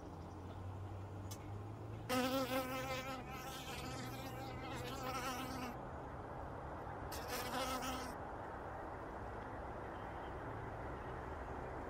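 Honey bees humming steadily in a hive that has come through winter alive. A single bee buzzes loudly close by, its pitch wavering, from about two seconds in for several seconds, and again briefly about seven seconds in.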